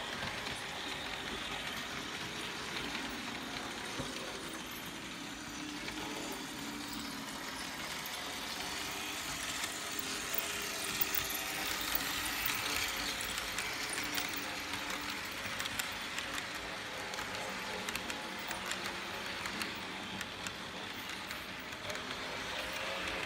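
Märklin model train running on the layout's metal track: a steady whirring rumble of the locomotive motor and wheels with fine rapid clicking over the rail joints, growing louder about halfway through as the train passes close by.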